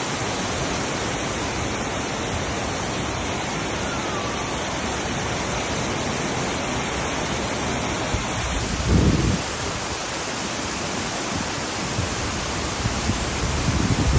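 Waterfall rushing steadily, with a brief low rumble about nine seconds in and again near the end.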